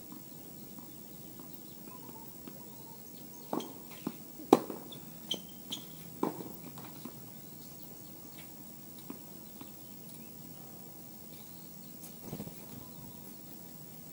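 Tennis balls knocking: a quick run of bounces and racket hits about three and a half seconds in, the loudest a sharp single hit. A few fainter knocks follow near the end.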